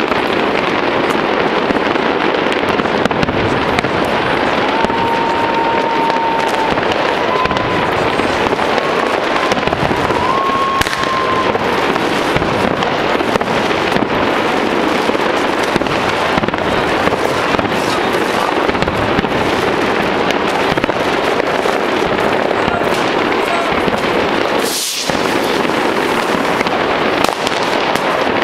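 Many fireworks going off at once: a dense, continuous crackling and banging that never lets up. A faint held whistle runs through the middle, and one sharper crack stands out near the end.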